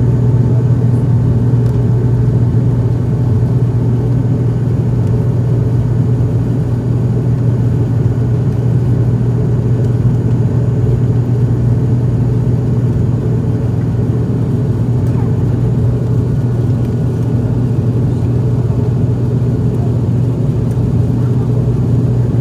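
Airliner cabin during takeoff: the engines running at high power make a loud, steady low drone that holds unchanged throughout.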